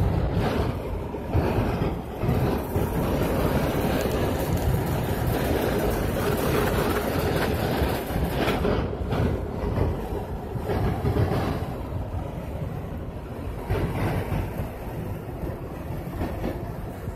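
Vehicle driving at highway speed in strong wind: a steady rumble of road and wind noise in the cabin, swelling and buffeting unevenly with the gusts.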